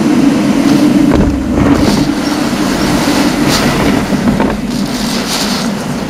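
Typhoon wind and driven rain heard through a closed window, a steady roar with gusts that rush up and fall back several times. The strong wind presses on the window pane hard enough that the glass seems to flex.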